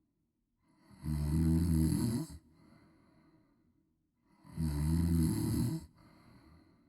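A woman snoring loudly: two long snores about three and a half seconds apart, each followed by a softer, breathy stretch.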